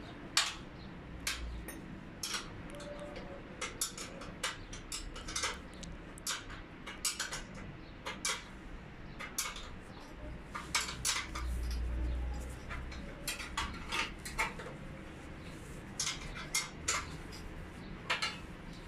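Irregular sharp metal clinks and taps of steel elevator-door sill brackets, rails and fasteners being handled and fixed by hand. A low rumble comes in briefly a little before halfway through.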